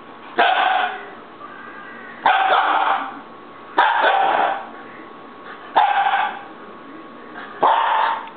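Siberian husky puppy barking in an angry fit, five drawn-out barks about every one and a half to two seconds.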